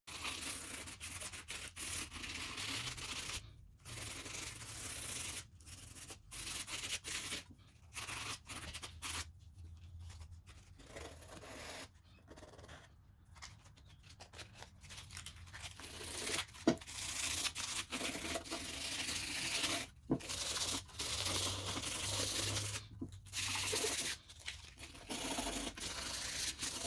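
Sandpaper rubbing over a chrome truck emblem by hand: rough scratchy strokes in bouts that stop and start abruptly. The sanding scuffs the chrome for painting.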